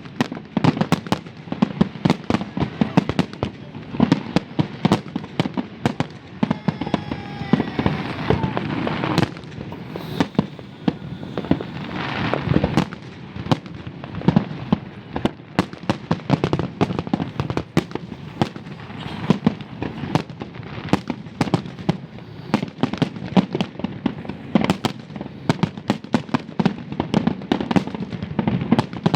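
Fireworks going off on all sides, front and back: a dense, unbroken run of sharp cracks and bangs, several each second, swelling into a fuller crackle around the middle.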